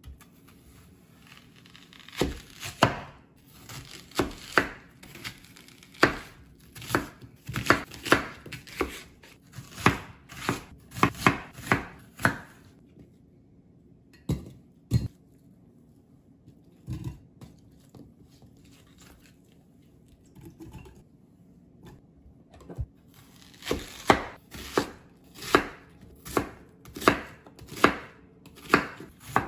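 Kitchen knife chopping food on a cutting board in sharp, even strokes about two a second. The strokes come in two runs with a pause of several seconds between them.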